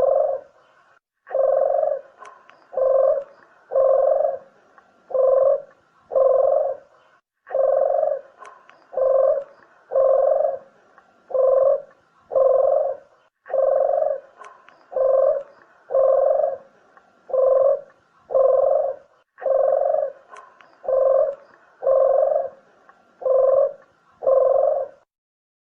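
Barbary dove (ringneck dove) cooing over and over, about one coo a second in runs of five or six with short pauses between. The cooing stops near the end.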